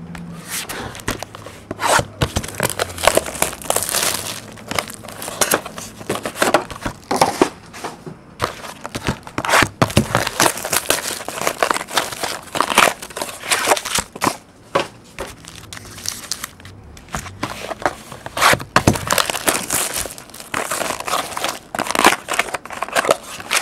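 Clear plastic shrink wrap being torn off a sealed box of trading cards and crumpled by hand, followed by foil card packs being handled. It makes an irregular run of crinkling and ripping that goes on throughout.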